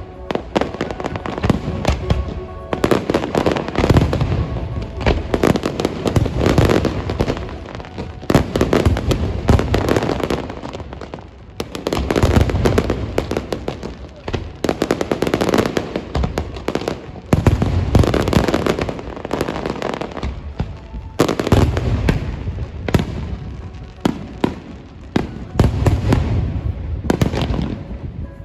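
Fireworks display going off continuously: a dense string of booms and crackling bursts, swelling into louder volleys every few seconds.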